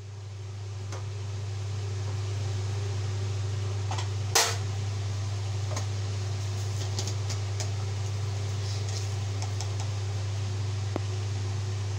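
A steady low hum in a small kitchen, with one sharp knock about four seconds in and faint crackles later from the mashed potato filling cooking in the frying pan.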